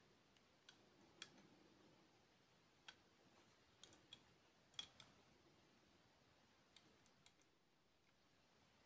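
Near silence broken by scattered faint clicks and taps from small diecast model vehicles being handled in the fingers. The clearest click comes a little before five seconds in.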